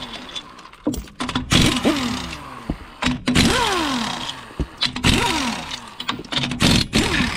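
Impact wrench spinning off a van's wheel lug bolts, one after another: short rattling bursts about every one and a half to two seconds, each ending in a falling whine.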